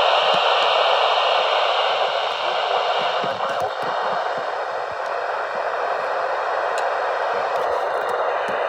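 Loud, steady radio static hiss over a weather-warning broadcast, with the reading voice buried beneath it: the reception has broken up.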